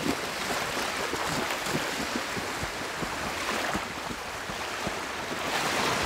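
Small waves washing and lapping onto a shallow sandy shore, with splashing as a person wades out through the water.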